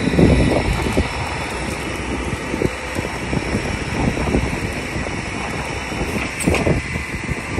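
Flatbed tow truck's engine idling steadily, with a few short knocks; the sharpest comes about six and a half seconds in.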